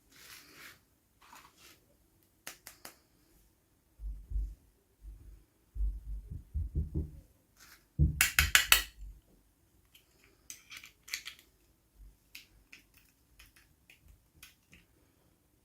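Hands handling small plastic toy pieces and packaging: scattered light clicks, taps and rustling, with a quick run of clicks about eight seconds in.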